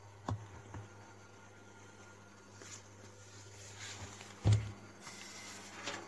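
Handling sounds in the stainless steel drum of a front-load washing machine: two small knocks right at the start, light rustling as a hand moves over the drum, and one heavy, dull thump about four and a half seconds in, over a faint steady low hum.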